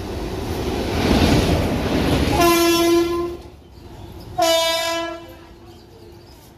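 Indian Railways WAG-7 electric locomotive running light past at speed, a loud rushing of wheels on rail that swells and then drops away. Two short blasts of a locomotive horn follow, about two seconds apart, the first a little longer.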